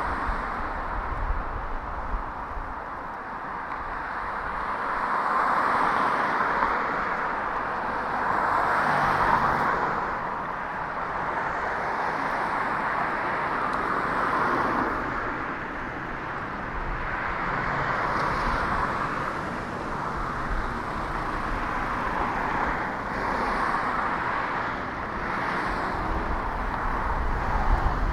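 Road traffic: cars passing one after another, their tyre noise swelling and fading every few seconds.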